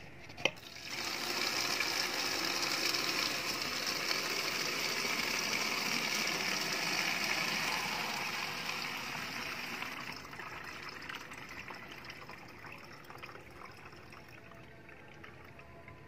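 Water being poured into a used bottle about a third full of rice, a steady gushing fill that starts about a second in after a short click and tapers off over the last few seconds.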